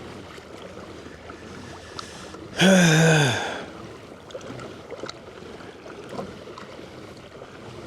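A man's loud, strained groan-like exhale, one breath falling in pitch about three seconds in, from the effort of pedaling a kayak against the wind. Faint water noise runs under it.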